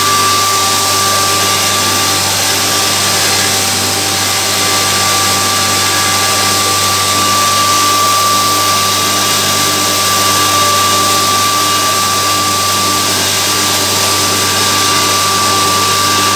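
A 3 HP grain pulverizer running steadily under load as grain is fed in and ground. Its high-speed mill gives a constant high tone over a loud, even rushing noise.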